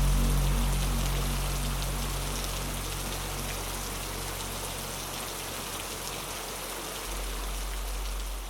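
Steady rain, a dense even hiss of drops, over a low dark-ambient drone that fades away during the first few seconds, leaving a faint low hum beneath the rain.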